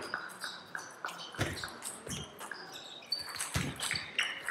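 Table tennis rally: the ball clicking off the rackets and the table in quick, irregular succession, with a few stronger knocks and short high squeaks that sound like shoes on the hall floor.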